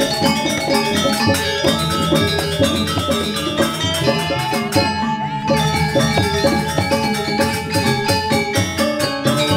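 Balinese gamelan playing: bronze metallophones and gongs struck in fast, dense patterns over drums, at a steady loudness.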